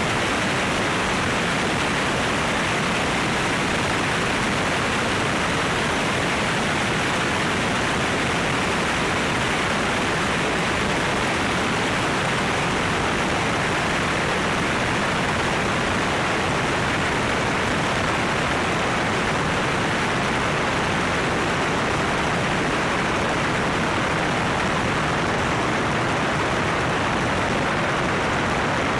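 Steady rushing airflow over a camera mounted on the outside of a small plane in flight, an even roar with no distinct engine note.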